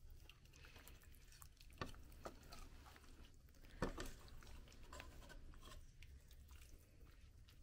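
Faint clinks and scrapes of a metal serving utensil against an aluminium cooking pot and a bowl as stir-fried greens are dished up, with two sharper knocks about two and four seconds in.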